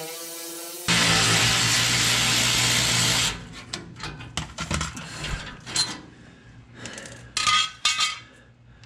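Cordless power ratchet running steadily for about two and a half seconds as it spins out a 10 mm skid-plate bolt, stopping abruptly. Then scattered metal clicks and rattles as the loose bolt and panel are handled.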